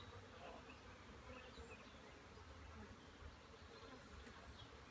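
Faint, steady buzzing of honeybees around an open hive.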